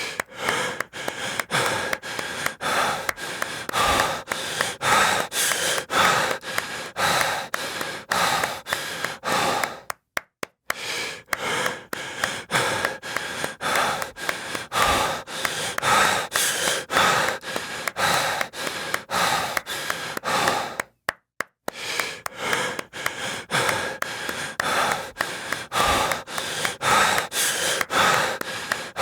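Heavy breathing and gasps over a quick, even run of claps. The sound cuts out for a split second about ten seconds in and again about twenty-one seconds in, then the same pattern starts over.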